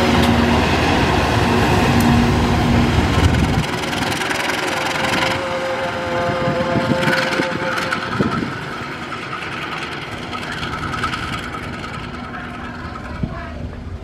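Diesel engine of a CC 201 diesel-electric locomotive running as it shunts slowly. It is loud at first, drops sharply about four seconds in and grows fainter toward the end.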